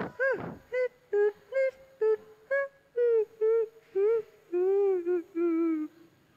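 A high-pitched voice in a series of about a dozen short, wavering notes, stopping shortly before the end.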